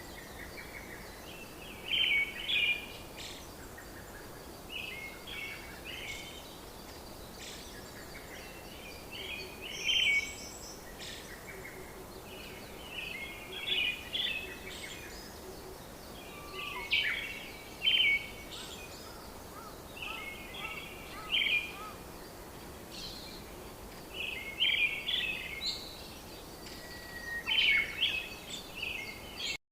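A songbird singing short, chirpy phrases every couple of seconds over a steady background hiss.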